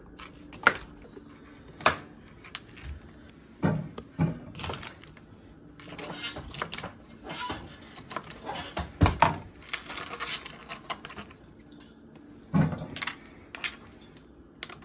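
Kitchen knife chopping asparagus spears into short sections on a cutting board: sharp, irregular knocks about a second or more apart, with a few seconds of rustling and scraping in the middle.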